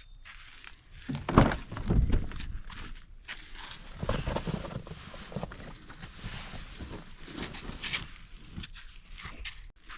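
Footsteps walking on crunchy outdoor ground, with a couple of louder thumps and rustles between one and two and a half seconds in.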